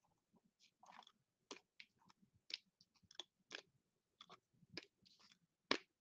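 Faint clicks and taps of hard plastic card cases as they are lifted off display stands and stacked together in the hand, about ten in all, the sharpest just before the end.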